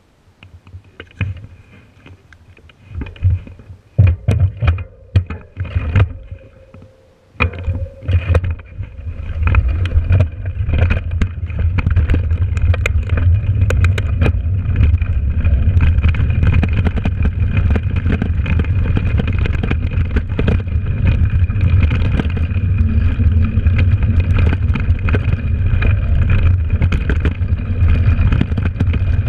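Mountain bike rolling over a rough dirt trail: scattered knocks and rattles for the first few seconds, then from about eight seconds in a steady loud rumble of wind on the camera's microphone with constant clattering of the bike over the bumpy ground.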